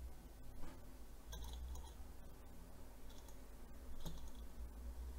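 Faint scattered clicks and light metallic ticks as a hand nudges the flywheel of a small Stirling engine to get it turning.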